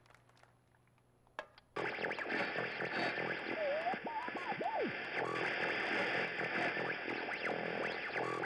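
Full high school marching band, brass and percussion, comes in loud and sudden about two seconds in after a short lull, playing on with a few sliding pitches.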